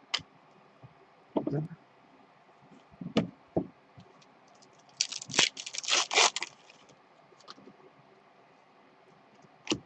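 Trading cards being handled and slid against each other: scattered light scrapes and taps, with a denser stretch of scraping and rustling about five to six and a half seconds in.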